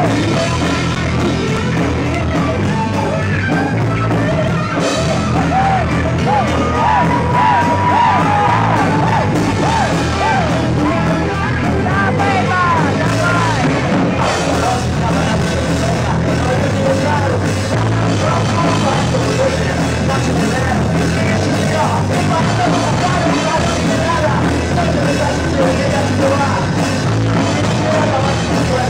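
Live rock band playing loud and steady. A lead melody of bending, wavering notes runs over the full band.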